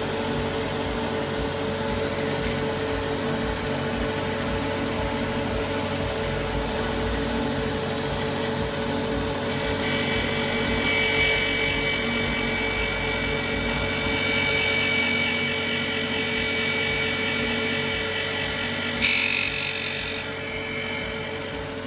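A power tool running steadily in a workshop. About ten seconds in, a higher-pitched whine joins it, and there is a short louder burst near the end.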